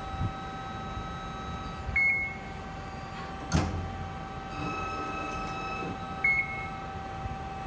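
Amada RG-25 hydraulic CNC press brake running, with a steady hum. One sharp clunk comes about three and a half seconds in, and a slightly louder whine follows as the backgauge moves. Two short high chirps sound, one about two seconds in and one near the end.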